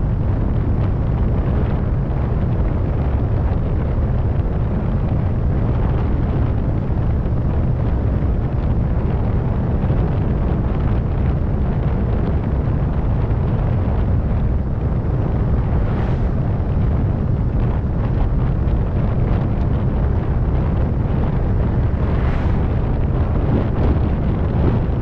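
Steady low rumble of a 2004 Ford Focus on the move, engine and road noise with wind buffeting the microphone, and two brief faint higher sounds in the second half. The car has a worn transmission or clutch that makes noises when shifting.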